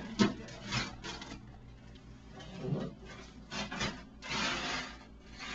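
Wrapping paper rustling and crinkling as a baby pulls at a wrapped present in short bursts, with a sharp tap just after the start and a longer burst of rustling about four seconds in.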